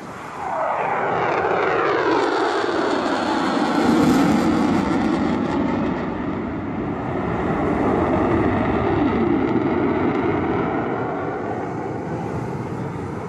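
A U.S. Air Force Thunderbirds F-16 Fighting Falcon fighter jet flying past, its jet engine noise building quickly and dropping in pitch as it passes. The noise is loudest about four seconds in, then fades slowly.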